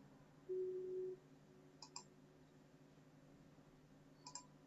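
A short steady tone lasting just over half a second, then two faint computer mouse clicks, about two seconds apart.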